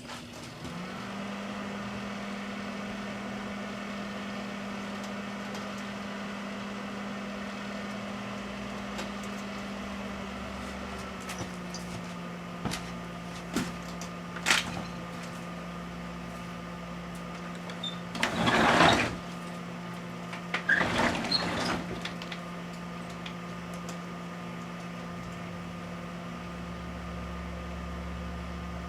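Large microwave oven running with a steady hum that starts just after the beginning and drops slightly in pitch about a third of the way in. A few short, louder noisy bursts come through around the middle.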